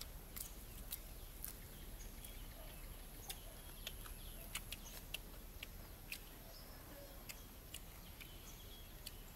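Quiet rural outdoor ambience: a steady high-pitched hiss with many short, sharp clicks and chirps scattered through it.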